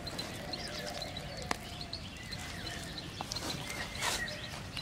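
Hands squeezing and breaking up a wet, crumbly bait mash, giving soft squelches and sharp clicks, with a louder squelch about four seconds in. Birds call over it, with a repeated short arching call and many quick high chirps.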